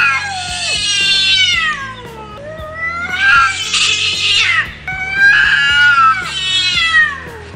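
Two cats caterwauling at each other: three long, wavering yowls that rise and fall in pitch. It is a threat display, with each cat trying to scare off the other rather than fight.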